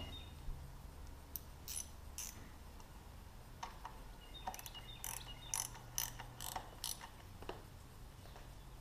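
A series of light, sharp clicks and rattles from small parts being handled during hands-on work on motorcycle wiring. The clicks are sparse at first and come quickly together in the second half.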